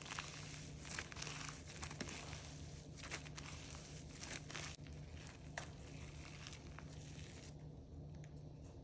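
Slime mixed with slushy beads being squeezed and stretched by hand, giving faint scattered crackles and clicks over a low steady hum.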